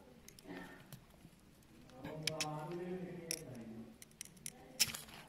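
Utility knife blade tapping and scraping at the broken rear camera lens glass of an Honor 6X, chipping the last fragments out of the lens surround: a run of sharp clicks, the loudest near the end.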